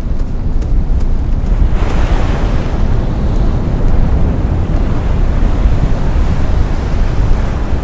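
Wind buffeting the microphone with a low rumble, over ocean surf washing onto the shore. A brighter hiss of breaking surf swells in about two seconds in.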